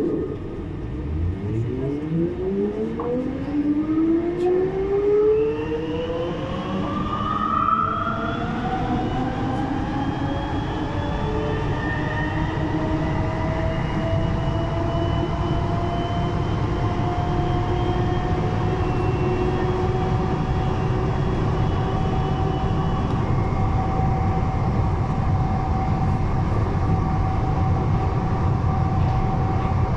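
Siemens VAL 208 rubber-tyred automated metro train accelerating away from a station, heard from inside the car: its electric traction motor whine rises in pitch over the first ten seconds, then holds steady at cruising speed over a low rumble.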